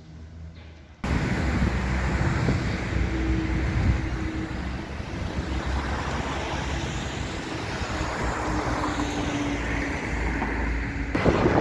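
Motor vehicle engine running with steady road noise, cutting in suddenly about a second in.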